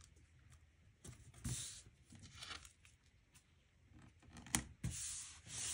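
Patterned paper being handled and smoothed down by hand onto a glued MDF board: faint soft rustles, two sharp taps about four and a half seconds in, then steady rubbing of the paper surface near the end.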